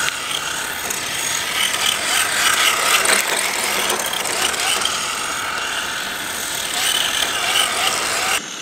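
Tamiya TT-02 four-wheel-drive electric RC car sliding around on asphalt on hard plastic tyres: motor and gear whine rising and falling with the throttle over the scrubbing grind of the tyres. It cuts off abruptly near the end.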